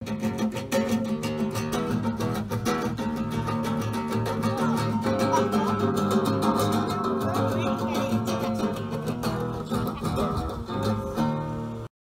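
Background music led by plucked and strummed acoustic guitar, starting abruptly and cutting off suddenly near the end.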